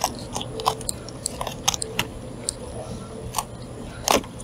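Fillet knife crunching and clicking in short, irregular crackles as it cuts along a sheepshead's bones, freeing the fillet. The loudest crunch comes near the end.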